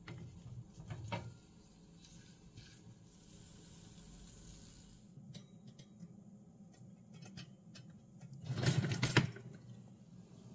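Quiet kitchen handling sounds: light clicks and taps of a wooden spatula on a small frying pan, then a slice of bread going into a pop-up toaster, with a louder rattling clatter near the end as the toaster is worked.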